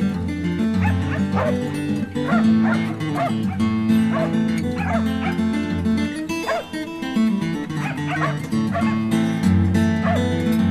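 An Australian Kelpie barking repeatedly, in short irregular runs of sharp barks, over continuous background music.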